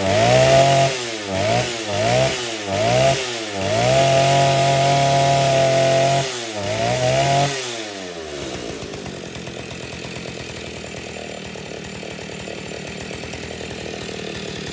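Stihl 08 two-stroke chainsaw revved in a series of quick blips, held at high revs for about two seconds, revved twice more, then dropped back to a steady idle for the last six seconds or so.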